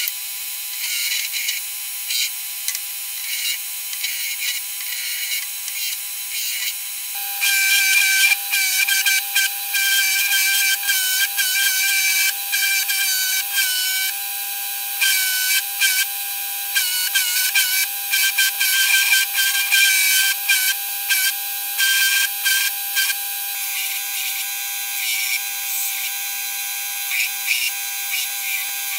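Belt grinder running with a steady whine while a plum-wood hatchet handle is pressed against the abrasive belt, the sanding scrape coming and going as the wood is worked. About seven seconds in, the machine sound gets fuller and louder.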